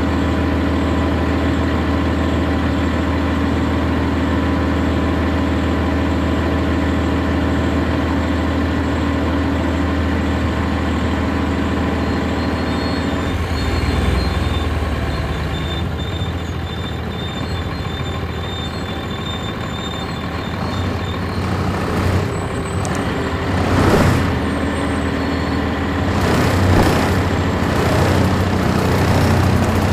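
Cummins ISC inline-six diesel of a 1999 NovaBus RTS transit bus, heard on board, running steadily at idle. About halfway through the steady engine note changes, and several short, loud noises follow in the last third.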